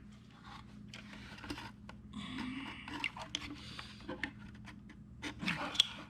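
Scraping and rubbing handling noises with scattered small clicks as an aluminum dead pedal is pressed hard onto its double-sided tape, with a longer scrape about two seconds in.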